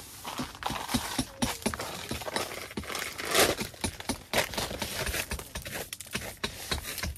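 Hand brush sweeping dirt across a nylon tent floor onto a piece of cardboard: a run of quick scratchy strokes and taps, with one louder sweep about halfway through.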